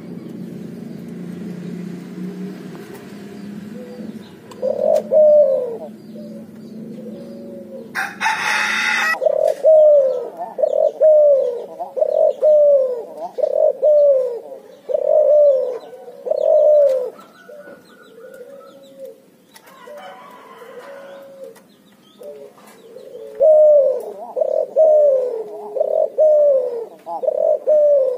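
Hybrid dove, a Barbary dove × spotted dove cross, cooing: a long run of short coos repeated about one a second, breaking off for several seconds in the middle and then starting again. A brief loud rushing noise about eight seconds in, and a low hum under the first few seconds.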